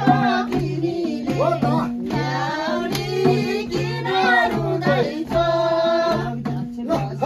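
Dance music with singing over a steady, repeating low instrumental pattern.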